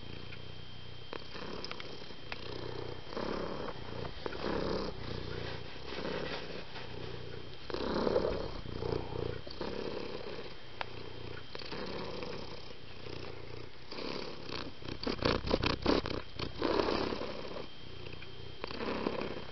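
Domestic cat purring close to the microphone: a low, pulsing rumble that swells and fades every second or two with its breathing. About fifteen seconds in there is a short run of quick clicks and rustles.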